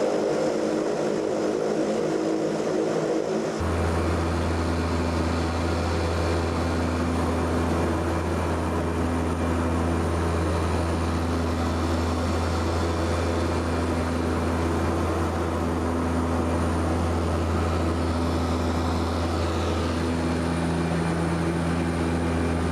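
Float plane's propeller engine droning steadily, heard from inside the cabin. About three and a half seconds in the sound changes abruptly to a deeper, stronger steady hum with a slow regular pulsing in it.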